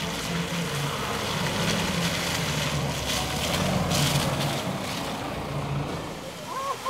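Toyota SUV's engine running at low speed as it drives over a rutted mud road, with tyres splashing and squelching through muddy puddles, loudest about three to four seconds in.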